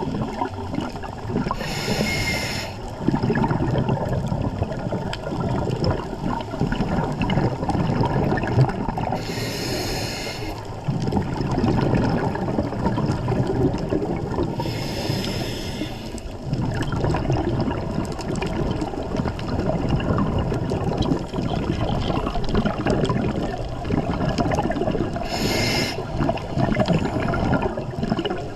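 Scuba diver breathing underwater through a regulator: a hiss with each breath, four in all, spaced several seconds apart, over a steady churning rumble of bubbles and water.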